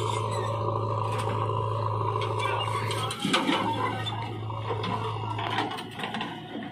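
Diesel engines of a JCB 3DX backhoe loader and a tractor running with a steady low hum. About three seconds in, a bucketload of soil and stones pours into the steel trailer bed with a loud rattle, followed by scattered clatter of falling clods.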